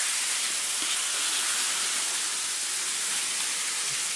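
Steady hiss of small hard snow pellets (graupel) falling through the woods.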